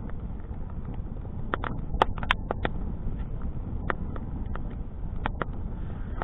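Wood fire of stacked sticks burning with a steady low rush, crackling and popping irregularly; a cluster of sharp pops comes about two seconds in, with single pops later.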